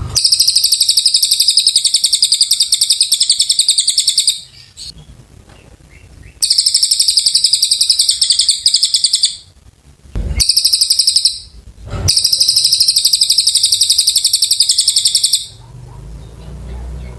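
A cililin songbird singing long, rapid, very high-pitched trills in three bouts of three to four seconds each, with a short burst between the second and third. Two brief low knocks fall in the pause before the last bout.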